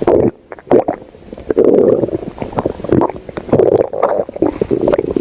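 A stomach growling in a run of irregular surges, some brief and some lasting about half a second, with a short lull just after the start.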